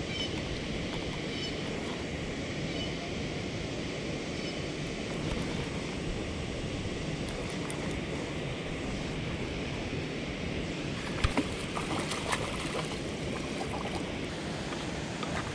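Steady rushing wind noise on the microphone, with a few sharp knocks about eleven to twelve seconds in.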